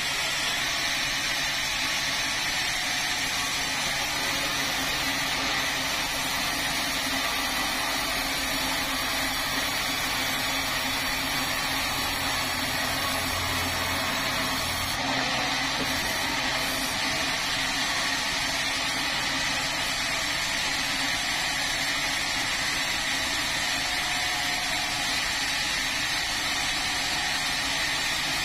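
An engine-driven saw running steadily while it cuts through a red meranti log, a continuous engine drone with sawing noise throughout.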